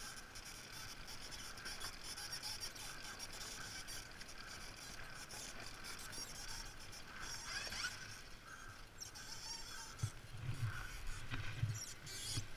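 ATV engine running at a low idle, heard faintly under a steady high whine, with a short rising rev a little past the middle. Low thumps and scuffs near the end as the quad goes over on its side.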